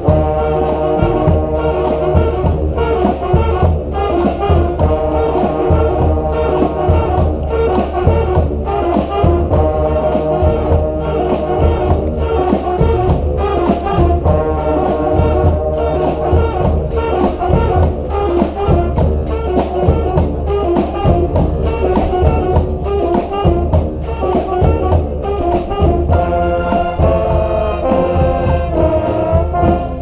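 Brass street band playing an up-tempo tune together: a crowd of trombones, trumpets and a sousaphone, with a steady beat under them.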